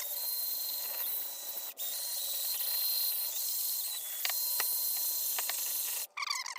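Electric polisher running steadily with a thin high whine, buffing a sanded plastic headlight lens with a cutting pad and heavy-cut compound. It drops out for a moment about two seconds in, and a few light ticks come near the end.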